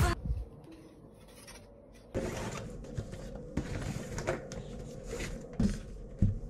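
Rustling and rubbing of a bag and belongings being unpacked at a desk, starting about two seconds in, with several light knocks as things are handled and set down.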